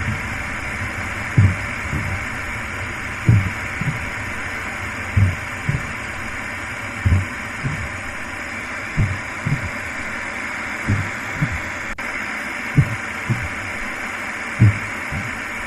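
Slow heartbeat sound effect: pairs of low thumps, lub-dub, about every two seconds, over a steady hissing drone.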